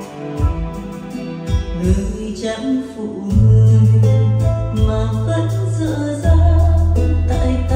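A Vietnamese ballad played through Paramax Euro 803 tower speakers and a Polk Audio HTS12 subwoofer, heard in the room, with guitar and a beat. Deep, sustained bass notes come in about three seconds in and step lower about three seconds later.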